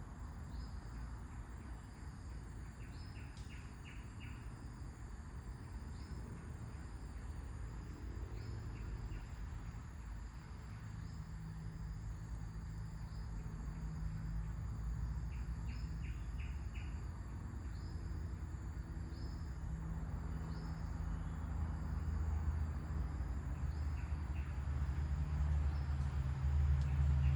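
Birds chirping in short repeated calls over a background of insects, with a low rumble that grows louder toward the end.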